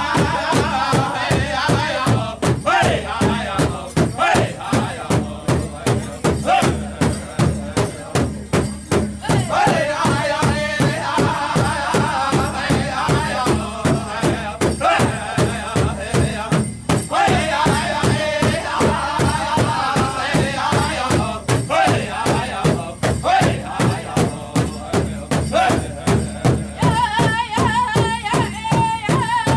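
Powwow drum group: several singers chanting together over a steady, even beat struck on one large shared drum. The singing swells and eases in phrases while the drumbeat keeps going.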